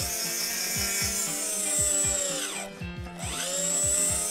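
A battery-powered toy screwdriver whirs as it drives plastic screws into a toy boat, over background music. Its whine winds down and stops briefly about two and a half seconds in, then spins back up.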